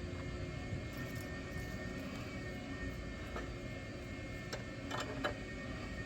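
Steady mechanical drone of a machine running in the background, with faint high whining tones, taken for someone detailing a car. A few light clicks and taps of hand tools come about a second in and again near the end.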